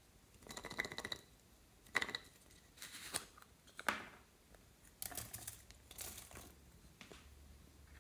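Clear plastic container handled and its lid opened, with a string of sharp plastic clicks and brief squeaks. Then small hard clay slices rattle as they are tipped out onto the slime.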